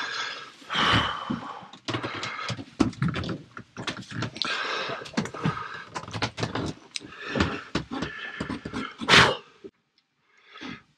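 Knocks, scrapes and thumps of a heavy 12 V lead-acid battery being lifted and shifted about in a wooden locker, with a louder knock about nine seconds in. A wavering higher-pitched sound runs over the handling noise at times.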